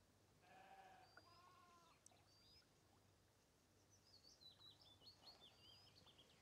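Near silence, broken by a sheep bleating faintly twice in quick succession about half a second in, then a bird's quick, high chirping calls through the last two seconds.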